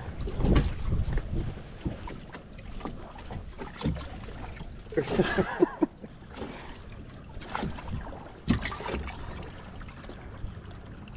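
Wind buffeting the microphone and water lapping at a small fishing boat, with irregular knocks and splashes as perch are handled over the boat's live well.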